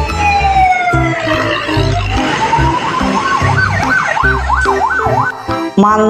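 A siren sliding slowly down in pitch, climbing back up, then switching to quick up-and-down whoops about twice a second, over background music with a steady beat.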